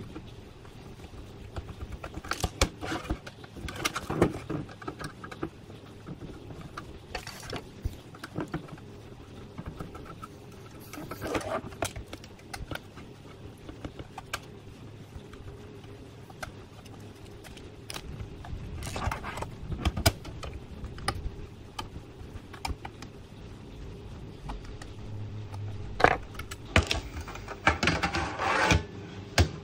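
Small screws being undone from a CCTV DVR recorder's sheet-metal case and set down on a table: scattered light metal clicks, taps and scrapes. Near the end comes a louder run of metal scraping and rattling as the case cover is worked loose.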